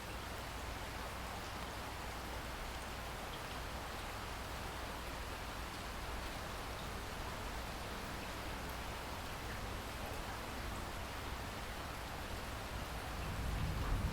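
Steady rain falling, an even hiss of drops. Near the end a deeper, louder rumble swells in beneath it.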